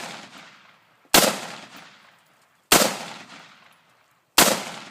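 AR-15 rifle fired in slow single shots, three in all about a second and a half apart, each crack trailing off in a fading echo.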